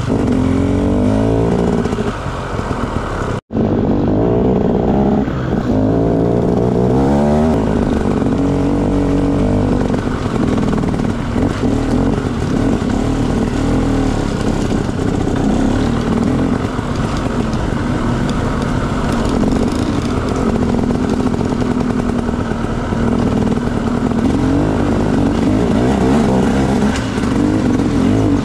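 Motorcycle engine running under changing throttle on a trail ride, its pitch rising and falling with the revs. The sound cuts out for an instant about three and a half seconds in.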